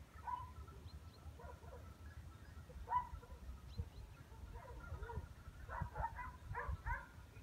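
Short animal calls, a dog-like yipping, repeated several times, the loudest about three seconds in and a quick run of them near the end, over a steady low rumble.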